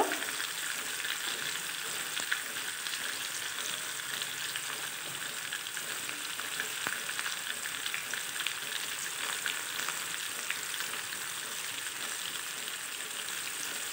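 Ash gourd cubes frying in oil in a kadai: a steady sizzle with small scattered crackles.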